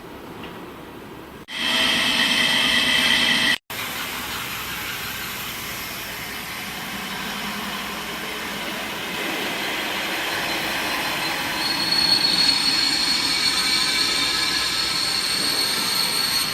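CNC steel-beam machine cutting a steel H-beam, with a steady metallic screech and high whining tones. It starts suddenly about a second and a half in, breaks off for a moment near four seconds, then runs on and grows louder, with a high whine coming in about twelve seconds in.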